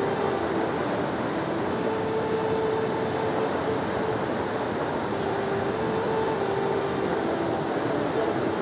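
Steady rushing of a flooded river pouring across a road. A faint steady mid-pitched hum comes and goes over it.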